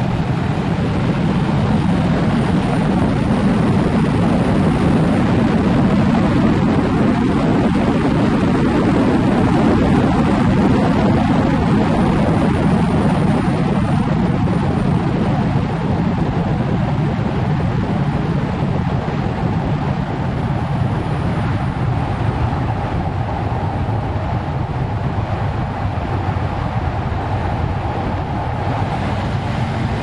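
Steady roar of wind and tyre noise as a 2002 Audi S4 drives at speed, heard through a camera microphone mounted on the outside of the car.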